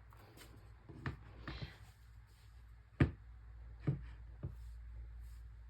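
Handling of an e-reader in its newly fitted case: a few soft taps and clicks, the sharpest about three seconds in.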